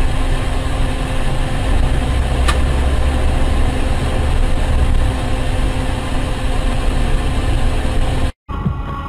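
Steady vehicle engine and road noise as picked up by a dash-cam, with a short tick about two and a half seconds in; it cuts off abruptly near the end.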